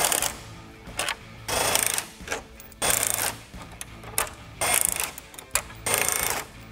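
Cordless electric ratchet with a 10 mm socket, running in short bursts of about half a second, four or five times, as it backs out the grille bolts one after another.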